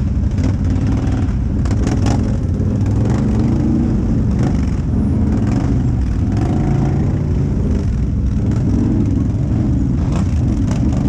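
Off-road vehicle engine running as it is ridden along a trail, its revs rising and falling, with a few short knocks about two seconds in and near the end.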